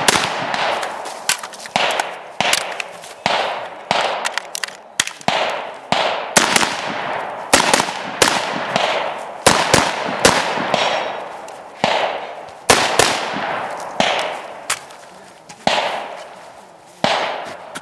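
Gunshots fired in a steady string, about one to two a second with some quick doubles, each sharp crack trailing off in an echo.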